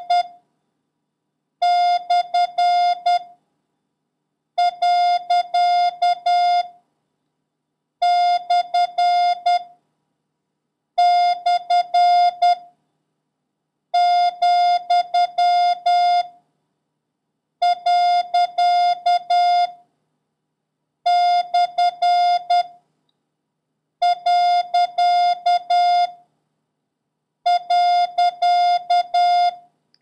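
Morse code practice tone, a single steady beep keyed into dots and dashes, sending the punctuation marks period, comma and slash one character at a time, about one every three seconds, for the listener to copy.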